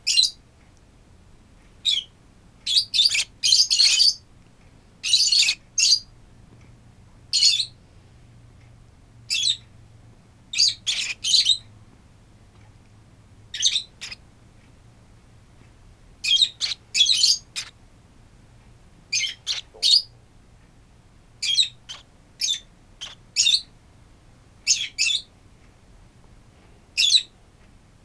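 Five-week-old baby lovebirds giving short, shrill chirping calls, sometimes singly and sometimes in quick runs of three or four, every second or two.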